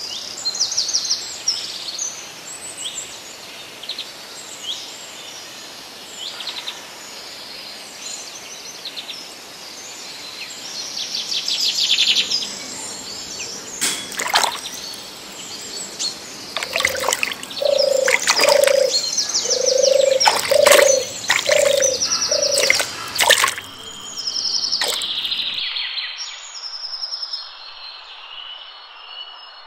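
Several wild birds chirping and trilling. Midway comes a run of about nine short, lower repeated call notes, with sharp clicks among them.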